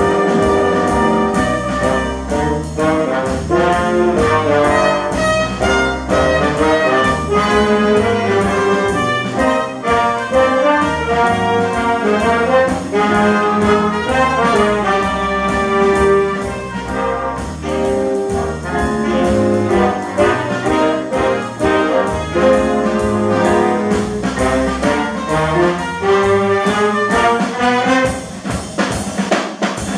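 Big band playing a swing jazz number live: saxophones and brass over piano, with a steady drum beat.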